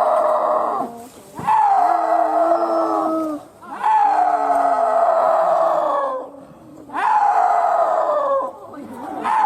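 Snow leopard calling: a series of long, wailing calls, each falling in pitch, about four of them with short pauses between.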